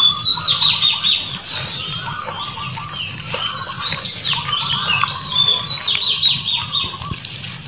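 Puppies eating cooked rice from a metal tray, chewing and snuffling with small clicks against the tray. Repeated high calls with falling glides come twice, about a second in and again around five to six seconds.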